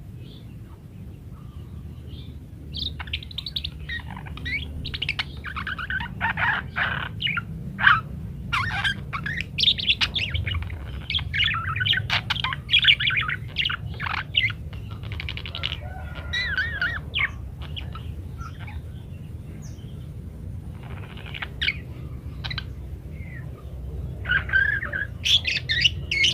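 Budgerigars chattering and warbling in fast, varied runs of chirps and twitters, starting about three seconds in and easing off briefly in the middle before picking up again, over a steady low hum.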